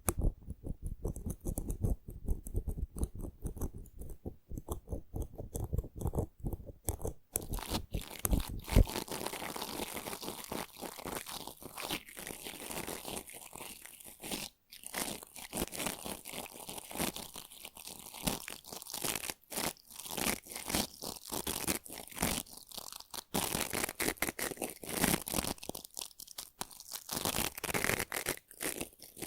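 ASMR brushing: the bristles of a stiff brush are stroked rapidly, making a scratchy, crackling sound. For about the first nine seconds the strokes are dense and heavy; after that they turn lighter and hissier and come in short runs with brief pauses.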